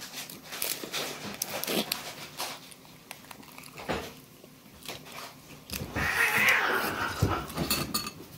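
Close-up wet chewing and lip-smacking of someone eating raw salmon with her fingers, in short scattered clicks. A louder, noisier sound lasting about a second and a half comes near the end.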